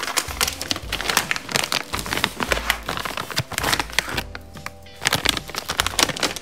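A plastic packet crinkling and rustling as it is handled, in quick irregular crackles, over background music.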